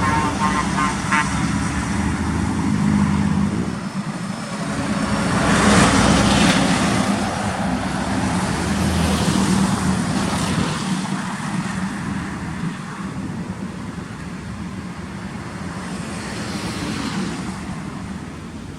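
Scania truck's diesel engine pulling hard under load. A horn sounds for about the first second. The engine noise swells to its loudest about six seconds in as the truck passes, then slowly fades.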